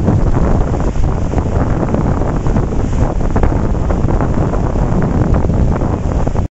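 Strong wind buffeting the microphone in a loud, steady rumble, over the wash of breaking lake waves. The sound cuts out for a split second near the end.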